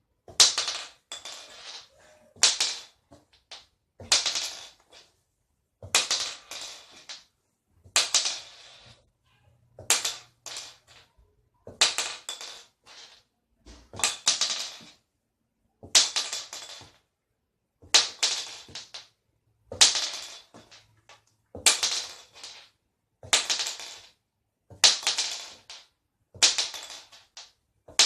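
.410 shotgun shell dropped again and again onto a hard surface, clattering and bouncing a few times on each landing. About one drop every two seconds.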